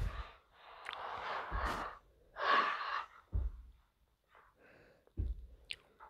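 A voice making several short breathy gasps and sighs with quiet gaps between them, with a brief high squeak near the end.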